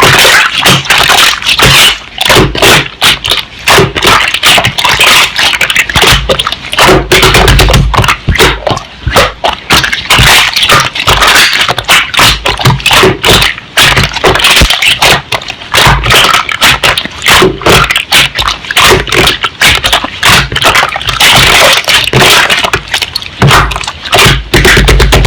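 Slime being squished, pressed and poked by hand, a dense run of wet clicking and crackling pops.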